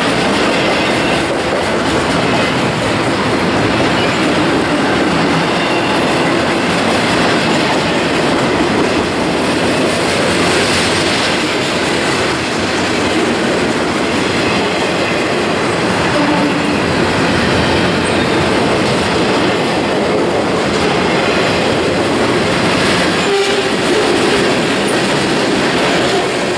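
Double-stack container well cars and then boxcars of a freight train rolling past, a loud, steady noise of steel wheels running on the rails.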